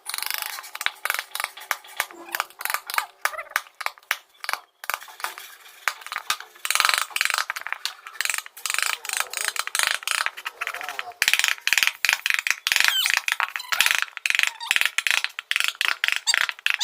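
Hand tools tapping and scraping on wood in quick, irregular strokes, getting busier and louder about seven seconds in.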